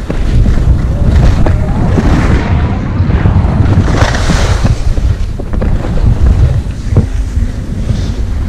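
Wind buffeting the microphone of a skier's camera during a downhill ski run, a loud steady low rumble, with skis hissing and scraping on the snow, loudest about four seconds in.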